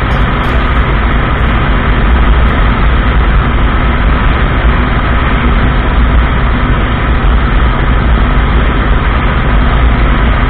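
Suzuki Boulevard M109R's 1800 cc V-twin engine running steadily at cruising speed on the open road, heard under heavy, even wind rush on the microphone.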